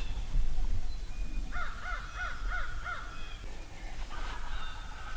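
A crow cawing five times in quick succession, about a second and a half in.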